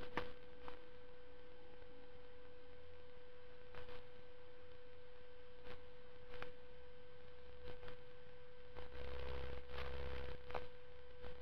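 A faint, steady hum at one pitch, with a few soft ticks and some low rubbing noise near the end as a wet paper strip is wound around a bead-rolling tool.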